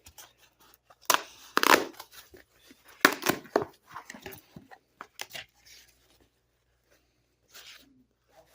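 A shipping mailer being torn open by hand. Two loud rips come about a second in and about three seconds in, followed by softer rustling and clicks of the packaging.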